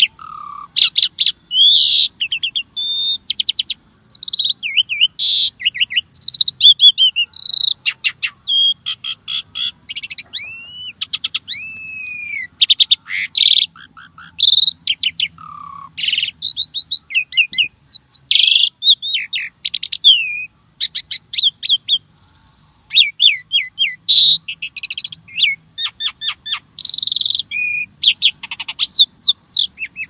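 A jalak (Asian starling) singing continuously. Its long, varied song runs on with short pauses and mixes rapid chattering trills, whistled rising and falling glides, and sharp clicks.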